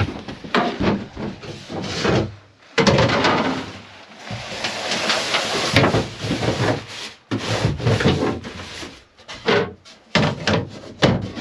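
Folded fabric cover and poles rubbing and scraping as they are pushed into an underfloor storage locker of a fibreglass boat, followed near the end by sharp knocks as the plastic hatch lid is set back into place.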